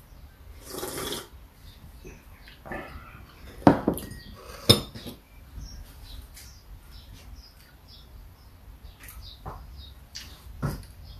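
Kitchen dishes and utensils being handled: scattered clinks and knocks, with a brief rustle about a second in and two sharp knocks, the loudest, about four and five seconds in.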